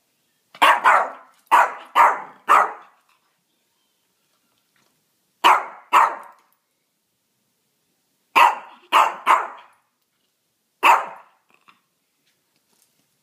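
Shorkie (Shih Tzu–Yorkshire terrier mix) barking: sharp, short barks in clusters, first a run of about five, then two, then three, then a single bark, with pauses of a few seconds between the clusters.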